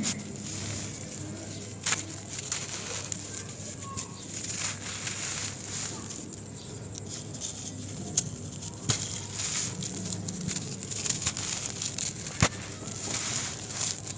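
Hands squeezing and crushing a dry ball of sand and cement, a continuous gritty crunching and crackling as it crumbles to powder, with sharp snaps about two seconds in and again near the end.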